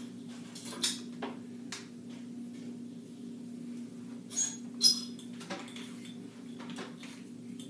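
A few sharp clicks and light clinks of small hard objects being handled, the loudest two close together about four and a half to five seconds in, the last with a brief metallic ring, over a steady low hum.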